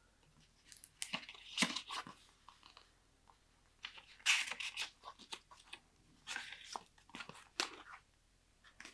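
Paper rustling and crinkling as old documents are handled and leafed through, in several irregular bursts.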